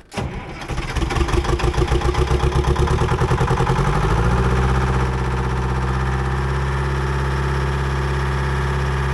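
Old excavator's Detroit Diesel engine running with an uneven pulsing beat, then speeding up about four seconds in and settling into a steady, even run. A clean, steady run here is the sign that its fuel-feed problem is fixed.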